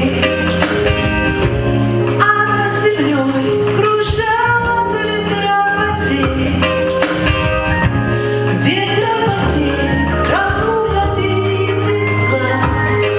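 A song sung by a female voice over an instrumental backing with sustained bass notes.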